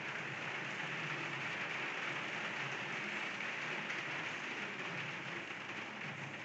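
Steady background hiss with no clear events, strongest in the upper-middle range, over a faint low hum.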